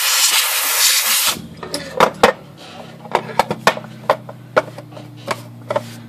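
Compressed air hissing from a blow gun for about a second and a half, then cutting off suddenly, as liquid is blown off a freshly cleaned typewriter lid. After it come light clicks and taps of the plastic-and-metal lid being handled and wiped with a rag, over a low steady hum.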